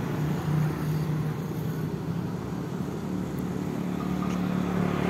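Motor vehicle engine running steadily with road noise, a steady low drone.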